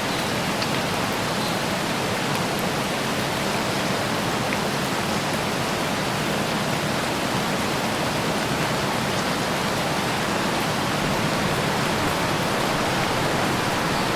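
Light rain falling on trees, a steady even hiss of drops on leaves with a few faint separate drop ticks.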